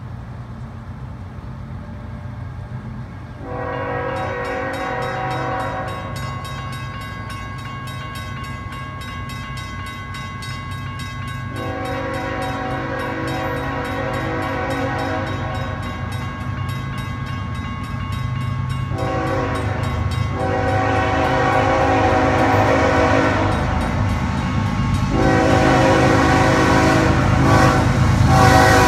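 Air horn of an approaching Canadian Pacific GE ES44AC locomotive sounding a chord in four blasts for the grade crossing. The last blast is held as the train nears. Under it runs the low rumble of the diesel locomotives, growing louder as they approach.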